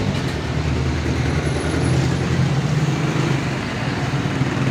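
A motor vehicle engine running steadily, a low even hum.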